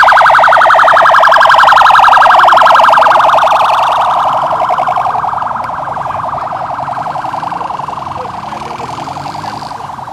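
Electronic convoy siren on an escort vehicle sounding a rapid pulsing warble, loud at first, then fading and dropping slightly in pitch as the vehicle moves away.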